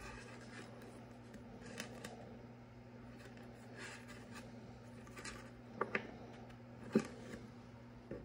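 Faint handling sounds of fingers rubbing and pressing a small finned aluminium heat sink onto a Peltier module, with a few light clicks and taps, the sharpest about seven seconds in. A steady low hum runs underneath.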